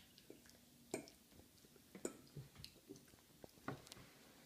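Near silence with a toddler chewing a chip: a few soft mouth clicks and smacks, roughly once a second.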